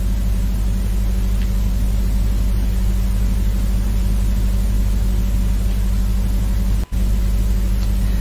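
Steady, loud low hum and rumble with hiss from a live sound system's open microphones, with a brief cut-out about seven seconds in.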